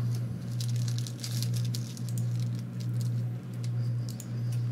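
Plastic wrapper of a trading-card pack crinkling and tearing as hands open it, a run of small irregular crackles, over a steady low hum.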